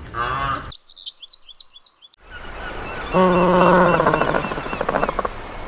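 A sequence of animal calls: a low, arching call that breaks off, then a quick run of high bird chirps, then a steady pitched call lasting about two seconds over faint chirping.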